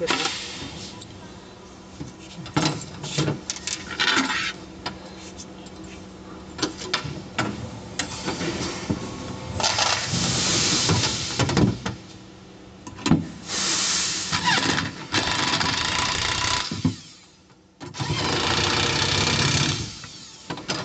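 Knocks and clinks of metal parts being handled, then a handheld electric power tool run in four bursts of one to three seconds, driving the bolts that fix a steel angle bar across the panel seams.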